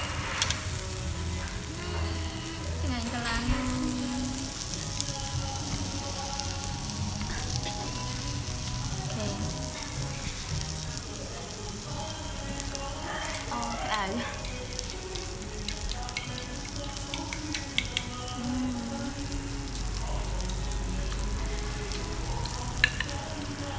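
Beef, bacon, squid and shrimp sizzling on a hot tabletop dome barbecue grill: a steady sizzle with scattered small crackles.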